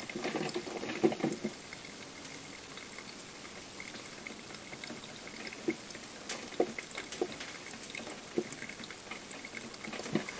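Krups XP1500 coffee maker brewing, about halfway through a six-cup pot: a quiet steady bubbling with scattered small pops and ticks.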